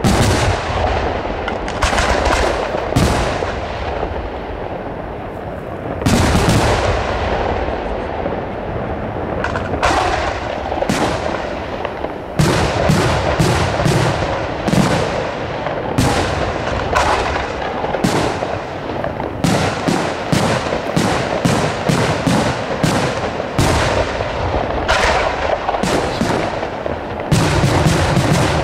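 Aerial firework shells bursting in a long run of booming reports, each with a short echo, the bursts coming faster from about halfway through.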